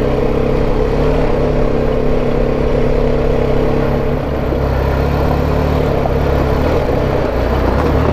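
BMW G310 GS single-cylinder motorcycle engine running under load at fairly steady revs while riding up a rough, rocky gravel track, its pitch dipping slightly about halfway through.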